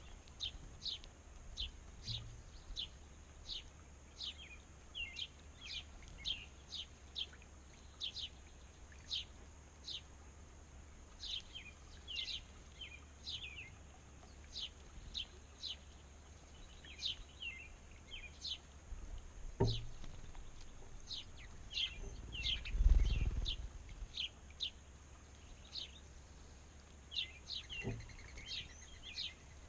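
Small birds chirping again and again, short high chirps that slide downward, one or two a second. About two-thirds of the way through a low rumble swells and fades, the loudest sound, with a soft knock before it and another near the end.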